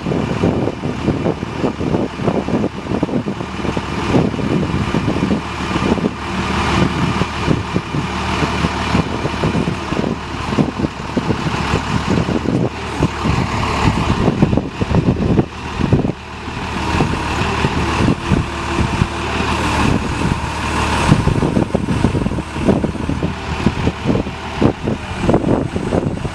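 Cummins 5.9-litre inline-six diesel engine of a 1993 Freightliner FL70 truck running steadily.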